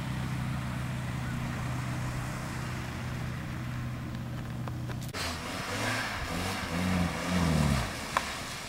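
Off-road pickup truck engine driving through deep mud and water: a steady engine drone for about five seconds, then after an abrupt change the engine revs up and down several times, loudest near the end.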